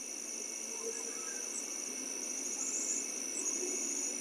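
Night insects trilling in a steady high-pitched chorus, with repeated short pulsed chirp runs, over a faint low steady rumble.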